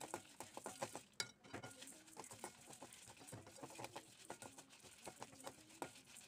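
A spatula stirring and scraping coriander seeds, cumin and dried red chillies as they dry-roast in a metal kadai: a quiet, steady run of small scratchy clicks and rattles.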